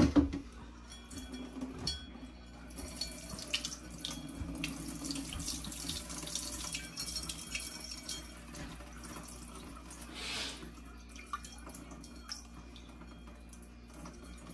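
Rice rinse water poured slowly from a stainless steel pot, trickling and splashing into a steel kitchen sink, with a brief louder gush about ten seconds in.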